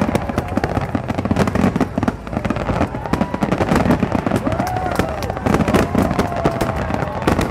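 Fireworks finale barrage: many aerial shells bursting in rapid, overlapping succession with no letup. A few long wavering tones run over the bursts.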